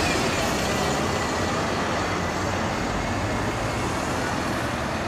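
Single-deck bus driving away, its engine and tyre noise slowly fading, with a faint whine that falls slightly in pitch.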